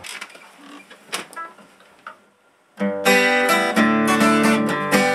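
Acoustic guitar strummed in chords, starting loudly about three seconds in after a few faint clicks and knocks.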